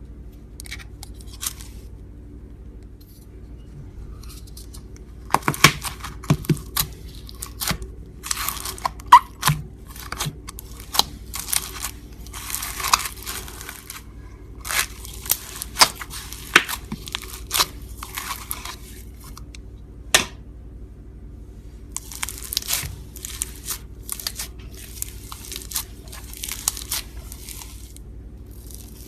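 Slime being stretched and squeezed by hand, giving irregular sticky pops, crackles and tearing sounds in bursts over a faint steady hum.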